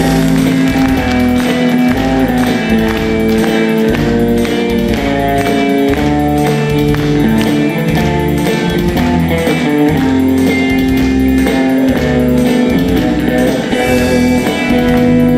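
A live band playing an instrumental passage: guitar over bass with a steady beat, leading into a song.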